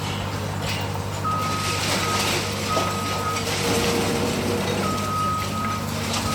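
A heavy machine's diesel engine running steadily, with a warning alarm sounding in about five uneven-length beeps from about a second in, over clattering noise.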